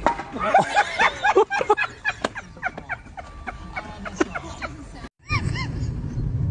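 Short excited cries and laughter among scattered sharp clicks. After a brief dropout, a goose gives quick repeated honks.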